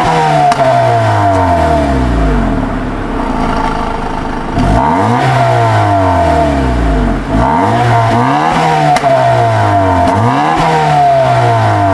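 2011 Honda Accord's 2.4-litre K24 inline-four engine being revved while parked: several quick blips, each climbing sharply and then falling back to idle.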